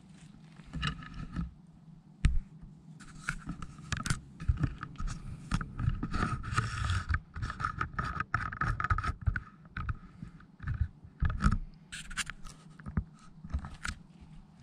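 Irregular crunching and scraping of dry leaf litter and brush being trodden and pushed through, with scattered sharp knocks and rubbing, densest in the middle stretch.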